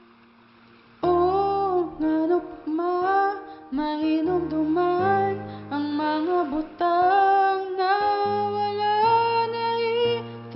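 A woman singing a slow, gentle song over instrumental accompaniment with sustained low notes, starting about a second in after a short quiet moment.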